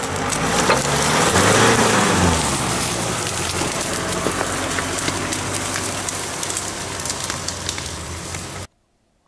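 Mitsubishi Pajero Sport's engine pulling it through thick forest undergrowth, revving up and easing off about one to two seconds in, while branches and plants brush and crackle along the body as it passes close by. The sound cuts off abruptly near the end.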